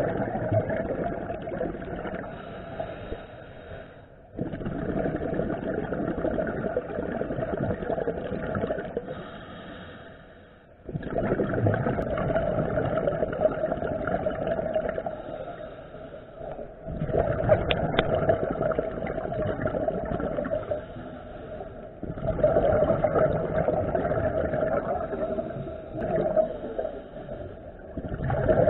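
Scuba regulator breathing heard underwater: rushing, bubbling stretches of about five seconds, each broken by a brief quiet pause as the breath cycles.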